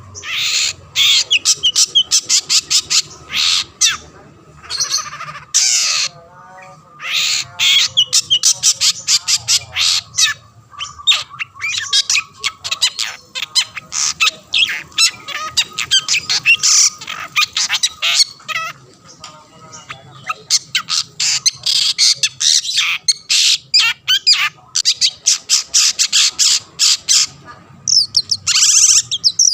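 Long-tailed shrike singing hard: long runs of rapid, harsh, scratchy chattering notes, broken by short pauses a few times.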